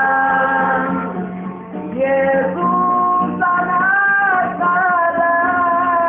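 Singing: a voice holds long sustained notes and steps from one pitch to another, over an instrumental accompaniment.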